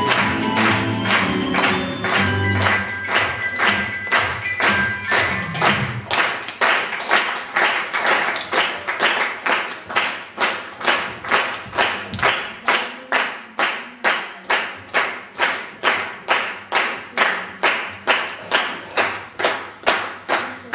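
A song with singing and accompaniment ends about six seconds in; then an audience claps together in a steady rhythm, about two and a half claps a second.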